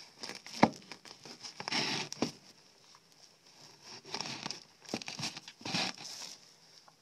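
Pheasant being cut up with a large knife: rustling, crinkling feathers and the tearing of skin and joint, in several short bouts, with a sharp knock about half a second in.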